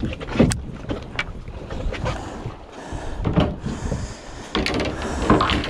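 Wind buffeting the microphone on an open fishing boat at sea, a steady low rumble, with scattered knocks and clicks from fishing rods and gear being handled.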